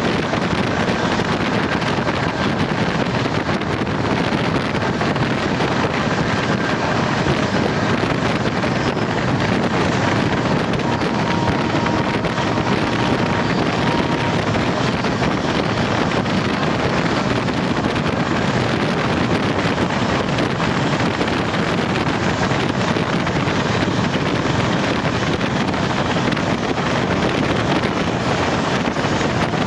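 Steady rushing noise of a diesel-hauled passenger train running at speed, with wind buffeting the microphone. There are faint high squeals now and then.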